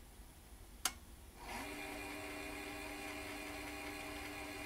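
A click, then the National/Panasonic NV-D48 VHS VCR's tape mechanism starts up: its motor comes up to speed with a brief rising whine and then runs with a steady, even hum of several tones. This VCR's mechanism keeps stopping by itself after running for a while, which the owner finds strange.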